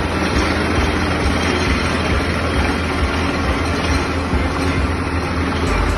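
Tractor-mounted drilling rig running: a loud, steady mechanical din with a deep rumble underneath.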